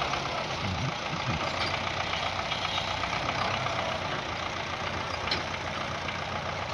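Belarus 510 tractor's diesel engine running steadily, with a fine, even clatter.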